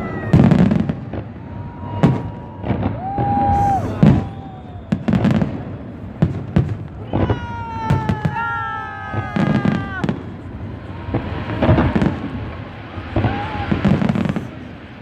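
Holiday fireworks salute: aerial shells bursting in repeated loud booms about every second. Several long whistling tones sound over the bursts, mostly in the middle of the stretch.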